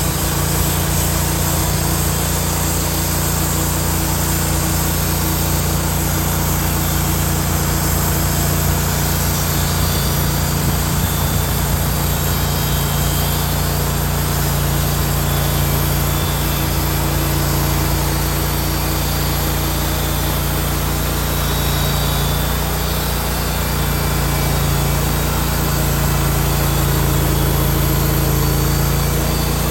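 Woodmizer LT15 portable band sawmill running steadily, its engine holding a constant pitch, a little louder near the end.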